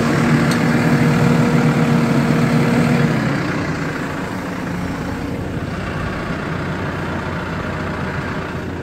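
An engine idling steadily. A steady humming tone over it cuts off about three seconds in, and the sound is a little quieter after that.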